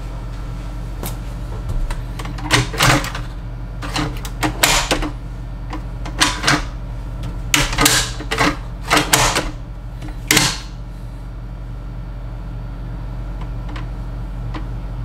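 Plastic clicks and knocks of a Keurig single-serve coffee maker being handled, about a dozen short sharp sounds over roughly ten seconds, then a pause. A steady low hum runs underneath.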